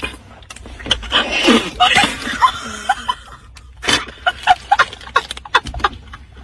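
Young women laughing and shrieking, in a run of short, high squeals and yelps.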